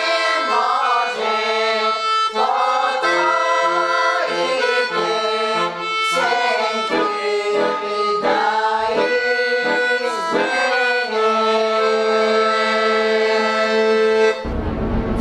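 Background instrumental music: a melody moving through chords that settles onto a long held chord, then cuts off abruptly into different music near the end.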